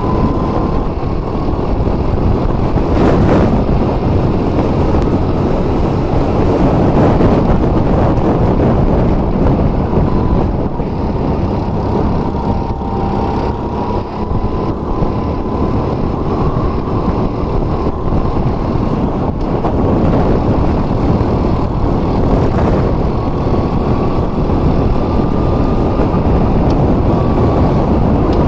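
Go-kart running at racing speed, heard from on board: a dense, loud mechanical rush with a thin whine that rises and falls a little as the kart accelerates and brakes through the corners.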